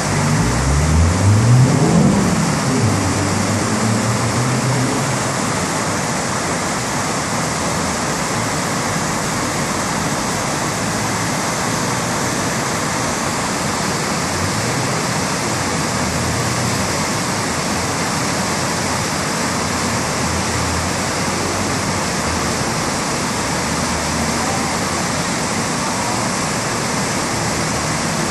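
Steady, loud rush of a river in flood pouring through whitewater rapids. In the first few seconds a motor vehicle's engine rises in pitch as it accelerates past, briefly louder over the water.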